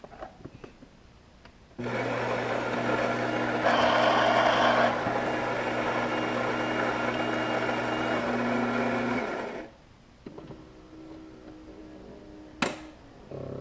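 Coffee machine's built-in bean grinder running for about seven and a half seconds, louder for a moment early in the grind, then stopping. A single sharp click near the end.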